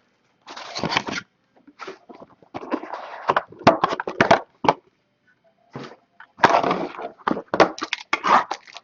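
Trading-card packaging being handled: irregular rustling and sharp clicks of cardboard and wrapper, with short pauses.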